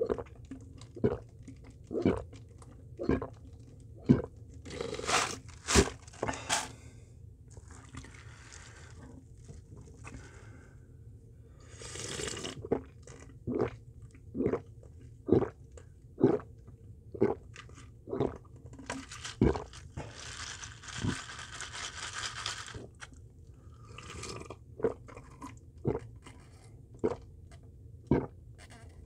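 A person gulping iced green grape ade from a plastic cup, with steady swallows about once a second. Several longer noisy stretches come as ice and drink move in the cup.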